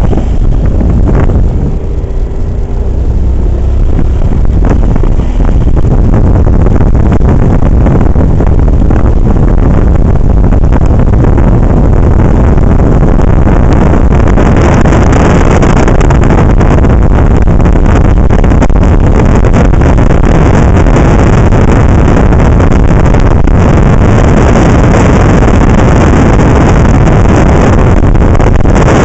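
Wind blasting a handheld camera's microphone on a moving motorcycle, with the motorcycle's engine and tyres on gravel underneath. It gets louder about five seconds in as the bike picks up speed, then stays loud and steady.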